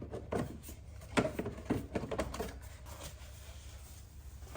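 A plastic cover being popped up and lifted off: a quick series of plastic clicks and knocks, the loudest about a second in.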